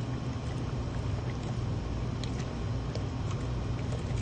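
Steady low machine hum with faint light ticks over it.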